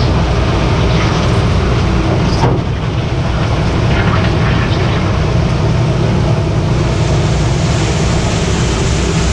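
Heavy construction machinery engine running steadily.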